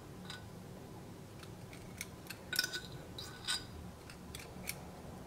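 Faint, scattered clinks and taps of a teaspoon against the metal of a stainless steel bowl as red chilli powder is spooned onto raw chicken, over a low steady hum.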